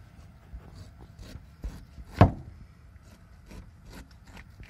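A large chopper blade shaving the rind off a pineapple: a run of short, sharp cutting strokes, with one much louder knock a little past two seconds in.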